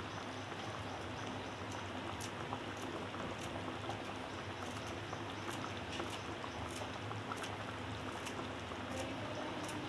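Pot of lima-bean curry simmering on a gas stove, a steady soft bubbling, with a sharp snip of kitchen scissors about once a second from about two seconds in as fresh coriander is cut into the pot.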